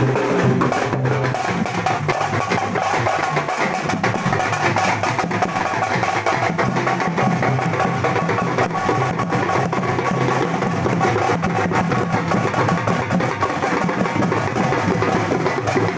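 A troupe of drummers playing slung barrel drums with sticks in dense, continuous procession drumming.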